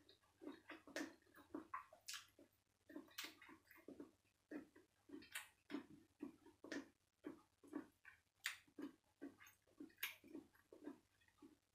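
Chewing and lip-smacking: soft wet mouth sounds repeating about twice a second, with a few sharper smacks and clicks.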